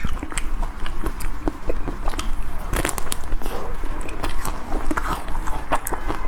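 Close-up biting and chewing of a chocolate-coated Magnum ice cream bar, the crisp shell cracking in many small irregular crackles, over a steady low hum.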